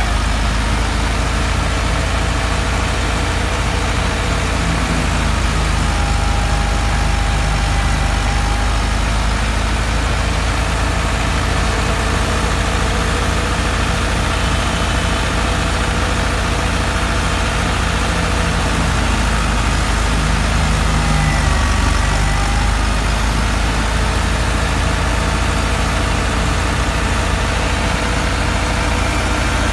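Massey Ferguson 385's four-cylinder diesel engine running steadily under load, driving a wheat thresher through its PTO shaft; the engine and the thresher drum make one continuous steady drone.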